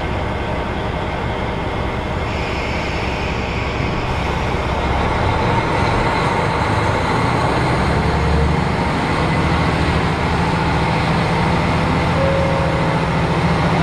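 Diesel railcar's engine idling at a station stop, then revving up about five seconds in as the train pulls away, with a steady low engine hum building, heard from inside the passenger car.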